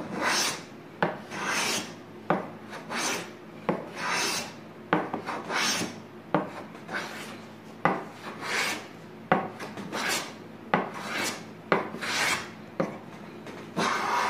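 Small wooden smoothing plane with a maple and ipe body and a PM-V11 steel blade, set for a deeper cut, taking short repeated strokes along the edge of a very hard ipe board. About ten strokes, each a hissing swish of the shaving being cut, most led by a sharp tap.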